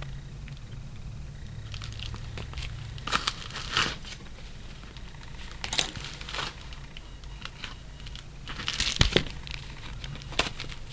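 Packaging crinkling and rustling in a series of short bursts as a small parcel is unpacked by hand and stickers are handled.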